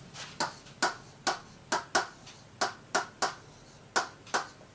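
Pen tapping and clicking against the glass of an interactive display board during handwriting, about two or three sharp taps a second.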